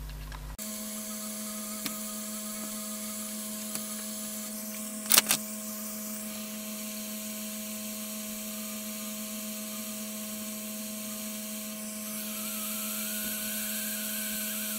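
Steady hum and hiss from the workbench while header pins are soldered onto a small circuit board, with a few light clicks, the loudest a quick double click about five seconds in. A faint rising whine comes in during the last few seconds.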